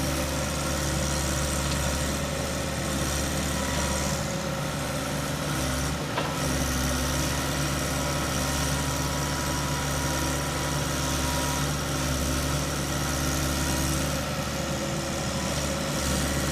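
Dump truck's diesel engine running at a steady speed, with a brief dip about six seconds in.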